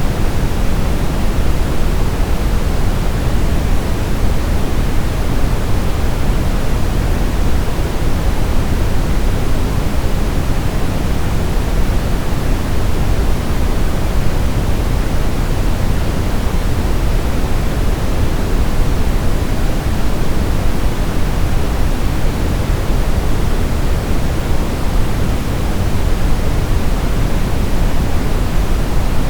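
Steady brown noise: a deep, even rushing hiss with most of its weight in the low end, unchanging throughout.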